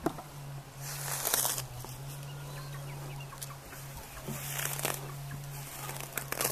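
Domestic hens clucking around a chicken run, with three short bursts of noise, the loudest about a second in, another midway and one near the end, over a steady low hum.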